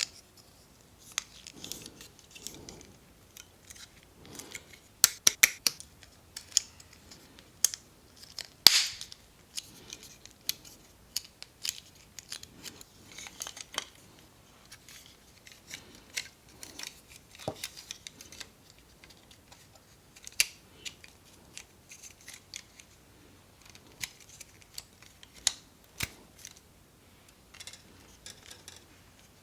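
Scattered, sharp plastic clicks and snips at irregular intervals as a plastic model kit is assembled: parts clipped from the runners and snapped together.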